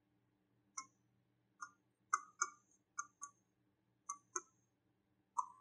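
A stylus tapping on a touchscreen board, giving about nine short, sharp clicks, several in quick pairs. The clicks come as a pen colour is picked from the on-screen palette and a few words are written.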